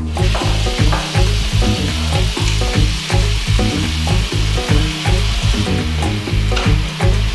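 Bathroom tap turned on and running into the sink, a steady hiss of water as hands are washed under it, thinning near the end. Background music with a steady bass beat plays throughout.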